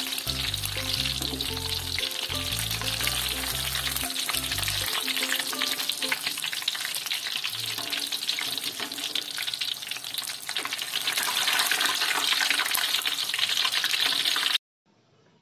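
Hot oil sizzling and crackling as battered stuffed tofu fritters deep-fry, with background music over it for the first few seconds. The sound cuts off suddenly near the end.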